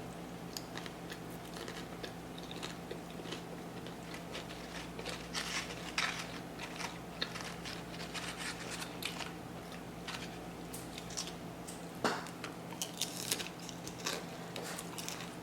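Close-up chewing and biting of crunchy tortilla-chip nachos, with irregular crunches, the loudest about six and twelve seconds in.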